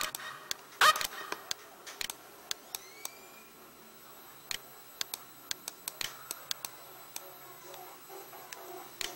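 Computer mouse clicking: two sharp loud clicks within the first second, then lighter clicks at irregular intervals.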